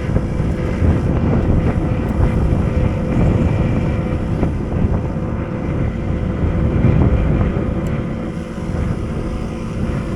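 Rooftop gas heating unit running in heat mode, burners firing and blower running, a steady rumble with a faint hum; wind buffets the microphone.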